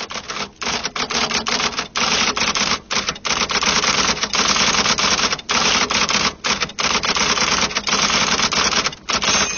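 Typewriter keys clattering fast in long runs with brief pauses: a typing sound effect.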